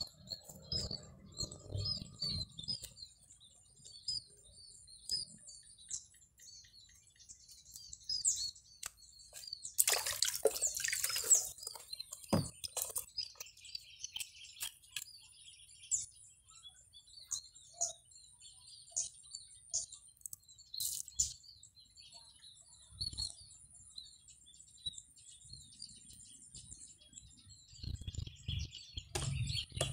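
Small birds chirping in short repeated calls, over a thin steady high-pitched tone. About ten seconds in there is a brief loud rush of noise, followed by a single sharp click.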